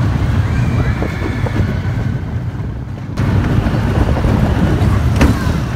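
Wind buffeting the microphone over the low rumble of a roller-coaster train running along its track, heard from a seat on the moving train. The sound changes abruptly about three seconds in, and there is a single sharp clack near the end.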